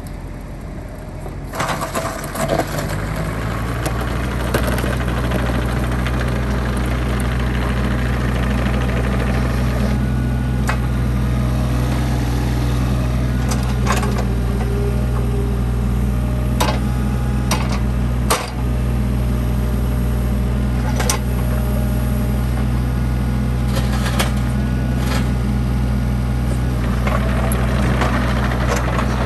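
Kubota U27-4 mini excavator's diesel engine running, its pitch rising over the first few seconds and then holding steady as the boom, arm and bucket are worked. Occasional sharp clicks and clanks sound over the engine.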